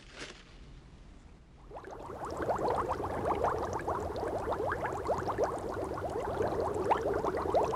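A long gurgling, bubbling slurp of liquid, starting about two seconds in and going on steadily to the end.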